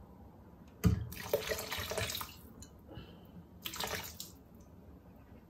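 White wine poured from a glass bottle into the stainless steel bowl of a Monsieur Cuisine Connect cooking robot, splashing in two spells: the first starts with a sudden thump about a second in and lasts over a second, the second is shorter, near four seconds in.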